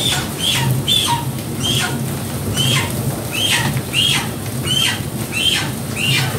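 Rotary drum chicken plucker spinning scalded chicken carcasses against its rubber fingers to strip the feathers. A steady motor hum runs under a falling squeak that repeats about twice a second.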